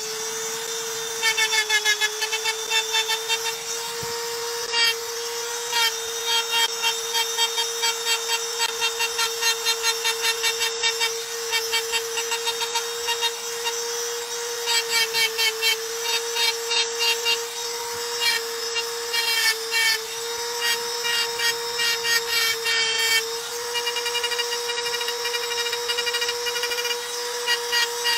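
Handheld power engraving tool cutting into a stone slab: a steady motor whine, with its bit chattering and grinding against the stone in rapid bursts as each line is worked.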